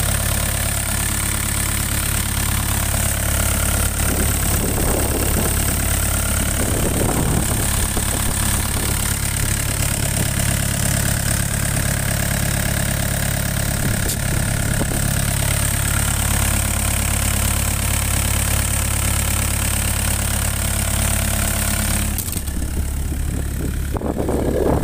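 Doosan DX55E mini excavator's diesel engine idling steadily, heard up close with the engine compartment open. The higher hiss drops away about 22 seconds in.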